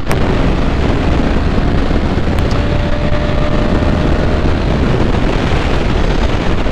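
Steady wind rush on the microphone and road noise from a moving motorcycle, with its engine running underneath.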